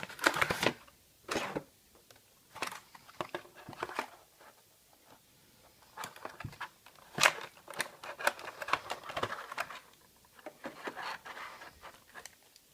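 Small cardboard model-airplane box being opened by hand: irregular scrapes, rustles and sharp clicks of the flaps and inner packaging, the sharpest click about seven seconds in.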